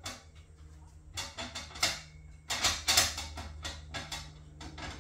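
Metal parts of a folding saw stand clicking and clanking as they are handled and fitted together, a string of sharp knocks and rattles, the loudest about two and three seconds in.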